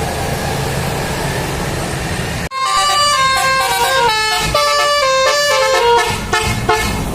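A bus engine running steadily. After an abrupt cut about two and a half seconds in, a basuri telolet musical horn plays a quick tune of changing notes.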